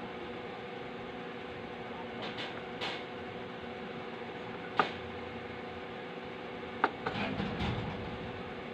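Small handling noises at a soldering bench: two sharp clicks, about five and seven seconds in, and a few short scraping sounds as the soldering iron and circuit board are worked. A steady background hum runs under them.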